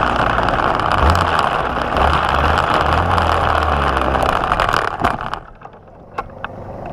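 Racing go-kart engine running as the kart rolls slowly, then switched off about five seconds in; a few light clicks follow in the quiet.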